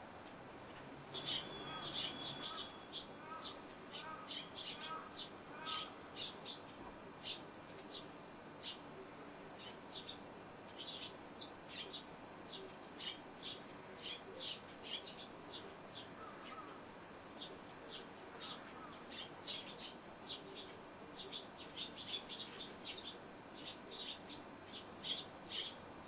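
A flock of Eurasian tree sparrows chirping: many short, sharp high chirps, several birds at once. The chirps come in busy flurries near the start and again near the end.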